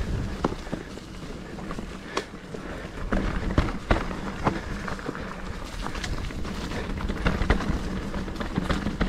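Mountain bike ridden over a rough trail: tyres rolling over rocks and gravel with many irregular knocks and rattles, over a steady low rumble.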